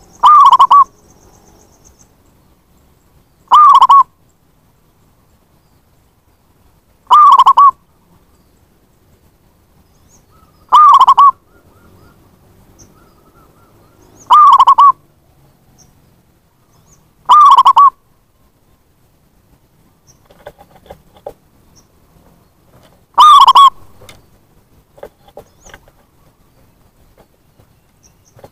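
Zebra dove (perkutut) cooing: a short, loud call repeated seven times, about every three and a half seconds, with a longer pause before the last. Faint clicks and rustles sound between the later calls.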